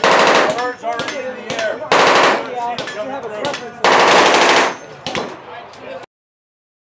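Three bursts of fully automatic gunfire, each under a second long, about two seconds apart, with people talking in between; the sound cuts off abruptly about six seconds in.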